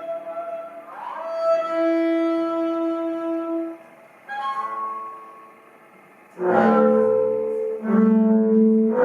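Slow instrumental music of long held notes, one after another. There is a quieter dip about five seconds in, then louder, lower sustained notes from about six and a half seconds.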